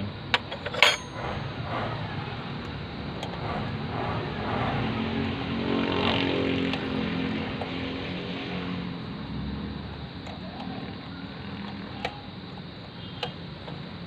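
A sharp metal click a little under a second in as a ball-joint linkage is snapped on by hand. Then a motor vehicle's engine swells and fades in the middle, with a couple of faint clicks from the linkage near the end.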